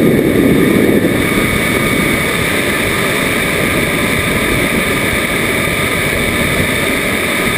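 Steady rush of airflow and engine noise heard from a camera riding on a model Rafale jet in flight, with a steady high whine running through it. It is slightly louder in the first second.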